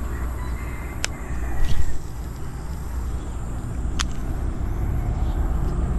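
A steady low rumble, with two sharp clicks about three seconds apart from a baitcasting reel being handled.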